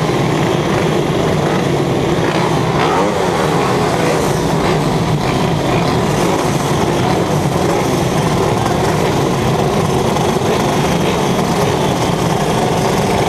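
A racing vehicle's engine, recorded onboard, running hard the whole time, its pitch rising and falling again and again with the revs.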